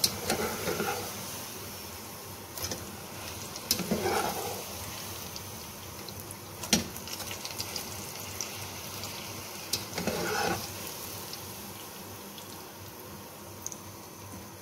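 Puri deep-frying in hot oil: a steady sizzling hiss, with a few sharp clicks.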